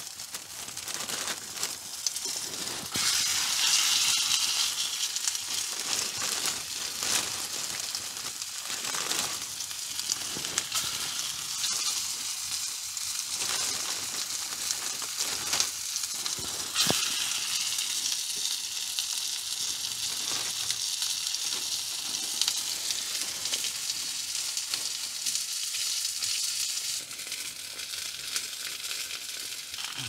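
Sausages sizzling in a frying pan held over an open campfire: a steady hiss with occasional sharp pops.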